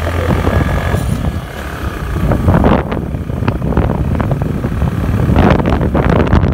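Wind buffeting the microphone of a moving motor scooter in irregular gusts, over the low hum of the scooter's engine.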